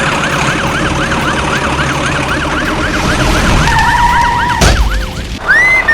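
Siren yelping, its pitch sweeping up and down about four times a second, joined by a steady tone near the middle. A short crash-like hit comes a little before the end, followed by a rising-and-falling whistle.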